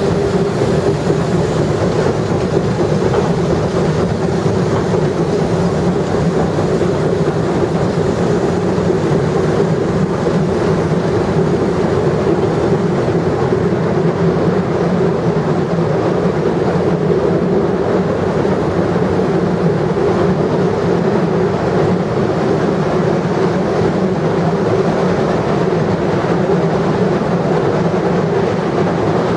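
Steam locomotive B3 No.130 running under way, heard from its cab: a loud, steady rumble of the engine and its wheels on the rails, with no let-up.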